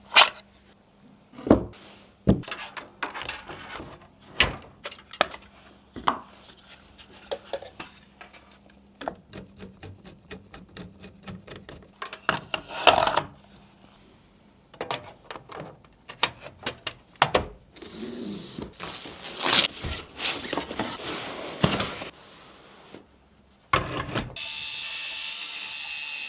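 Computer parts being handled and fitted by hand: scattered sharp clicks and knocks with some rubbing, a run of rapid ticking partway through, and a steady noise starting near the end.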